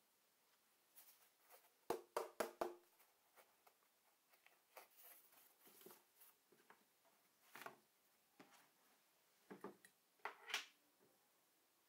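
Handling noises from a thin board and paper on a worktable. A quick run of four sharp taps comes about two seconds in, followed by scattered light taps and a short rustle near the end.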